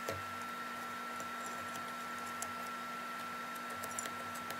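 Small metallic clicks and taps from handling the clamps and brass workpiece on the faceplate of an antique watchmaker's lathe: one at the start, one about halfway, and a few near the end, over a steady faint hum.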